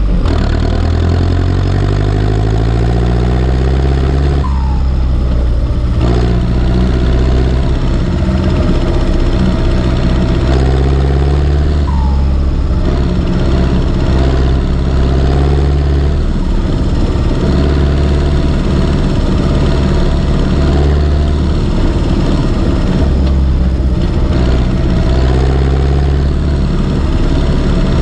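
Turbocharged Ursus C360 tractor's four-cylinder diesel engine running steadily at working speed, its note shifting a little with load and throttle.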